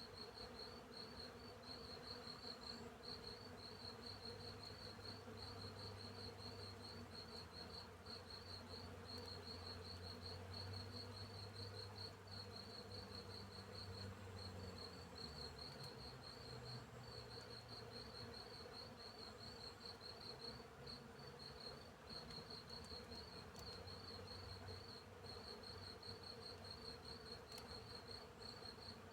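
Crickets chirping in a field, a faint, rapid and even chirp that goes on without a break. Through the first half a bee buzzes low nearby, its pitch wavering as it moves, then it fades away.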